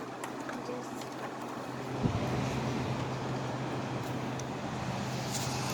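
A GE 5,000 BTU window air conditioner runs with its fan on high: a steady rush of blowing air over a low motor hum. About two seconds in there is a click, and the hum grows stronger after it.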